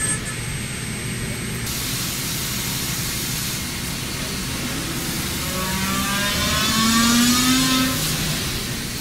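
CNC lathe turning a metal workpiece with a carbide insert: a steady machining noise, with a rising whine that swells from about five and a half to eight seconds in.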